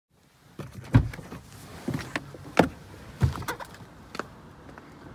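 A car door being opened and someone climbing out of the car: a series of clicks and thumps, the loudest about a second in.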